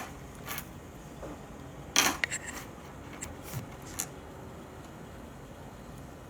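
A few short clicks and rustles of handling, the loudest about two seconds in, over a steady low background hiss.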